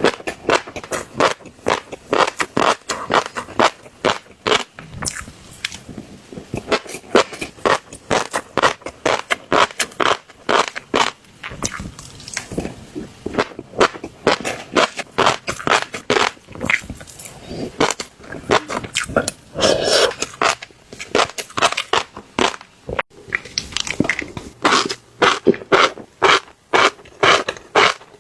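Fish roe popping and crunching close to the microphone, most likely as it is chewed, with a dense, irregular crackle of many sharp pops a second.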